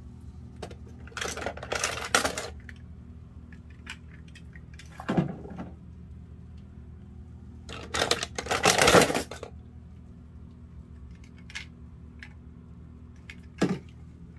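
Die-cast toy cars clinking and knocking against one another and the plastic bin as they are handled, in a few separate bursts of clatter, the loudest near the middle.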